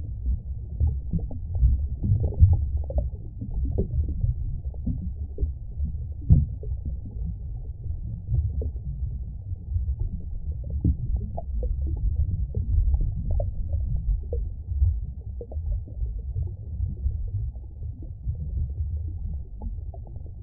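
Muffled low rumble and gurgle of stream water as heard underwater, with irregular small pops and knocks throughout.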